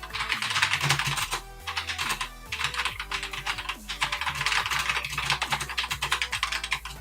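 Fast typing on a mechanical keyboard with Gateron Brown switches: a quick, uneven stream of key clicks and clacks with a few brief pauses.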